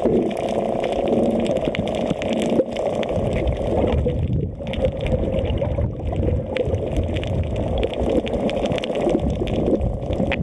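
Muffled water noise picked up by a camera held underwater: water sloshing and bubbling around the housing, with many small clicks and crackles.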